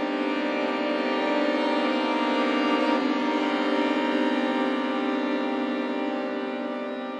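String quartet of two violins, viola and cello holding a dense sustained chord. It swells to its loudest about three seconds in, then slowly fades.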